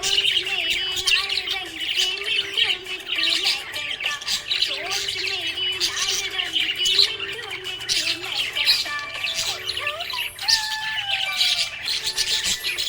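A flock of pet budgerigars chirping and chattering without a break, sharp high calls overlapping one another. Music plays faintly underneath.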